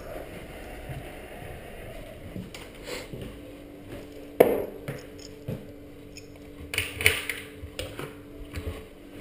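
Footsteps, then kitchen handling noises as a glass and dishes are picked up at a counter and a wall cupboard is opened: a single sharp knock about four and a half seconds in, and a cluster of clinks and knocks around seven seconds in.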